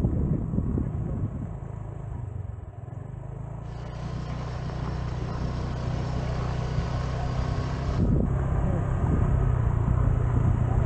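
Motor scooter riding: a steady low rumble of wind on the microphone over the running engine. It dips briefly a couple of seconds in, then builds back up.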